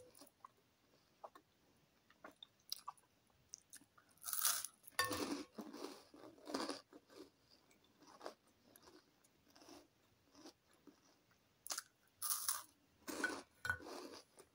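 Close-up eating sounds: crisp cheese twist sticks being bitten and chewed with loud crunching. The crunching comes in two spells, a few seconds in and again near the end, with quieter chewing between.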